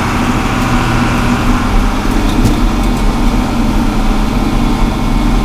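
John Deere 4230 tractor's six-cylinder diesel engine running steadily while the tractor drives along.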